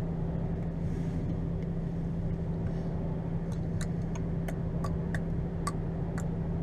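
HGV diesel engine idling steadily, heard from inside the stationary lorry's cab. From about three and a half seconds in there is a string of sharp ticks, about two a second.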